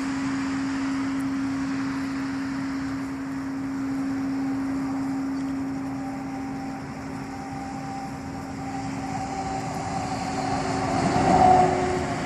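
A steady low hum, the unexplained outdoor 'weird sound' the recordist attributes to the sky. A fainter, higher tone joins partway through, and the sound swells briefly near the end.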